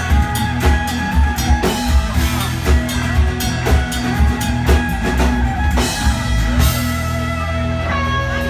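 Live band playing with a steady drum-kit beat under acoustic and electric guitars and bass. The drumbeat drops out near the end, leaving the guitars ringing.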